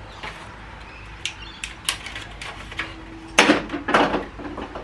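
Retaining clips being pushed out of a black plastic Toyota Coaster dashboard trim panel: a series of sharp plastic clicks and knocks as the clips pop free and the panel is handled, loudest about three and a half seconds in.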